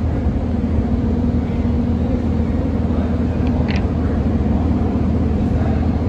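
Steady low rumble and hum of machinery in an underground rail station, with a couple of brief, faint high-pitched clinks a little past the middle.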